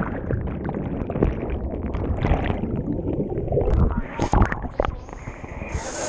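Muffled underwater rumble and bubbling from the churned water of a waterfall plunge pool, heard through a GoPro's waterproof housing, with a few knocks about four seconds in. Just before the end the camera breaks the surface and the hiss of splashing water returns.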